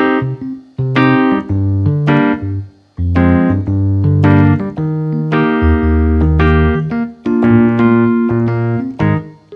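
Yamaha MODX synthesizer played in a piano-like keyboard patch: chords over low bass notes in short phrases, with brief breaks about a second in and at three seconds.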